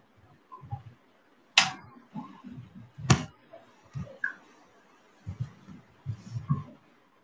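Handling noise from the recording device being moved and adjusted: a series of low thumps and bumps, with two sharp clacks about a second and a half apart, the first about a second and a half in.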